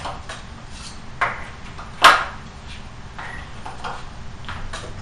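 Numbered cards being hung on the pegs of a pegboard and handled against each other, giving a few light clicks and knocks. The loudest comes about two seconds in, with another a little after one second.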